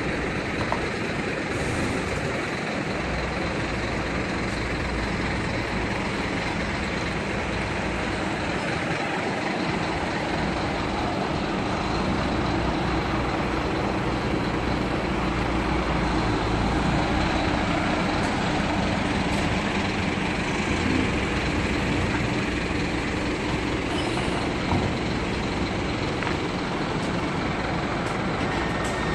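Diesel engine of a Marcopolo Paradiso coach running as the bus manoeuvres slowly past close by, its rumble growing a little louder in the middle of the pass.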